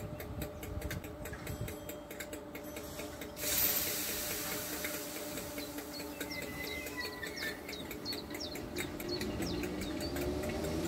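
Merseyrail electric train at the platform: a sudden hiss of air a little over three seconds in, over a steady electrical hum, then near the end a rising whine building as the train pulls away. Birds chirp faintly in the background.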